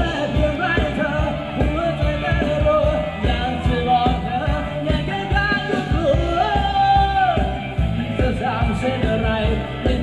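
Thai ramwong dance song played by a live band, a singer's melody over a steady drum beat.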